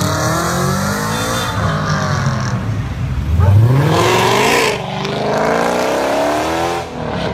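Sports car engines revving as the cars accelerate past, the pitch sweeping up and down. There is a sharp climb about three seconds in, then a drop at a gear change and another long rising pull.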